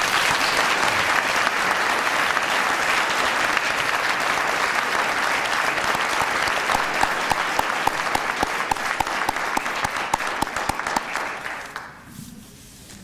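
Audience applauding, a dense spread of many hands clapping that starts suddenly and fades out near the end.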